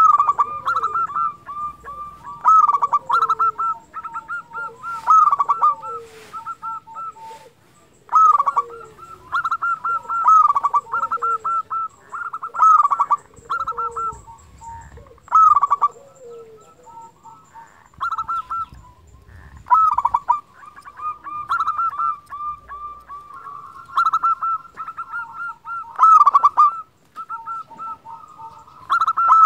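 Zebra dove (perkutut) singing: phrases of quick, staccato cooing notes repeated every couple of seconds, with short pauses between them.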